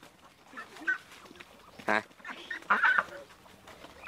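Penned farm poultry calling: short, scattered calls, one louder call about two seconds in, and a cluster of calls near the end.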